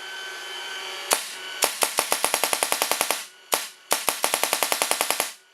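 Azodin Blitz paintball marker firing reballs in capped full auto with its breech eyes off. A single shot about a second in, then a rapid string of about ten shots a second, one more single shot, and a second string that stops near the end.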